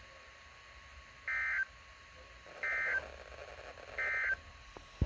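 Emergency Alert System end-of-message data bursts on a NOAA Weather Radio broadcast: three short bursts of two-tone digital warble, about a second and a half apart, marking the end of the severe thunderstorm warning. A single sharp click comes near the end.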